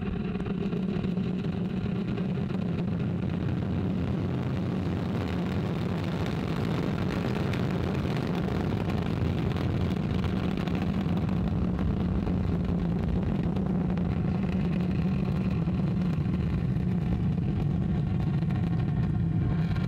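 Ariane 5 ECA rocket at liftoff and climb: its two solid rocket boosters and Vulcain 2 main engine firing, heard as a steady low rumble.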